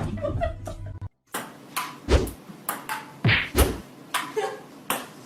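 A string of about ten sharp knocks and thumps, some with a low thud, coming one after another after a brief dropout about a second in.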